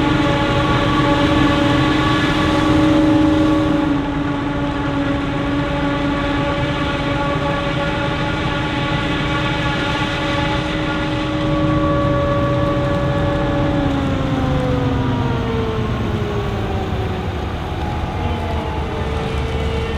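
Krone BiG X 680 forage harvester running under load with a steady, loud whine. The whine slides down in pitch over several seconds about three quarters of the way through.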